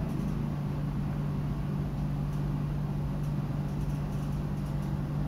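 Steady low background hum with a faint hiss, unchanging throughout.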